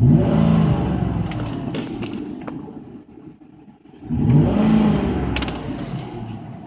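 Car engine revved twice, about four seconds apart: each time the engine note rises and then falls back as the revs die away.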